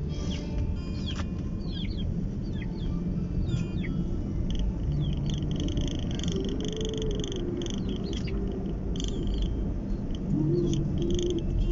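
Birds and insects chirping and calling in a busy chorus of short sweeps and shrill pulsing, over the low rumble of the car driving on the road.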